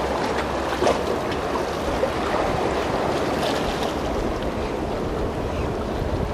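Sea waves washing against the shore, a steady rushing noise, with wind rumbling on the microphone.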